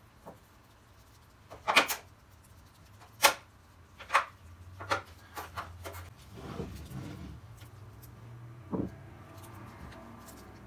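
Handling sounds of food preparation on a table: several sharp clicks and knocks in the first half and a single dull thump near the end as filled onion rings are pressed and set down on a wooden cutting board. A faint low hum runs under the second half.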